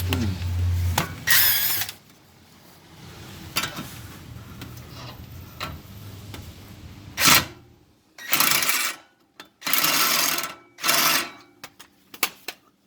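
Impact wrench hammering in three short bursts of about a second each on a 15 mm exhaust manifold bolt, which it fails to loosen.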